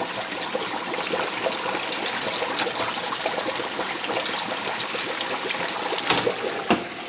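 Hot oil bubbling and sizzling hard around a whole turkey just lowered back into an electric turkey fryer to finish cooking. Two sharp clacks about six seconds in.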